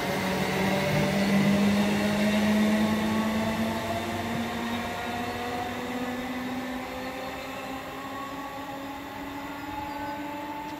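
Electric multiple unit's traction motors whining as the train runs along the platform, the whine rising slowly in pitch and fading away over a rail rumble.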